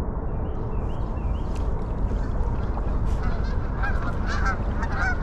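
A flock of Canada geese honking. The calls start about three seconds in and come thicker toward the end, over a steady low rumble.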